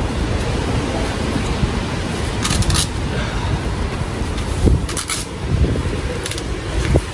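Steady rushing outdoor noise, with three short crackling rustles a second or two apart as hands work at a waterlogged find that looks like part of a pop-up tent.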